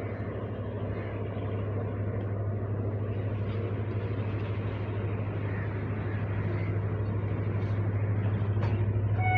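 Approaching diesel locomotive hauling a passenger train: a steady low engine drone with the rumble of wheels on the track, growing slowly louder as the train draws nearer.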